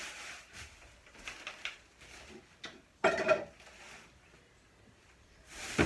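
Plastic grocery bags and packaged food rustling and being handled, with a few light knocks as items are set down. The loudest crinkle comes about three seconds in and another near the end.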